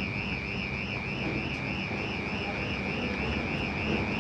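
Steady warbling electronic warning tone, wavering up and down about four times a second, as from a crossing alarm sounding for an approaching train, over the low, steady running of a TU2 narrow-gauge diesel locomotive pulling in slowly.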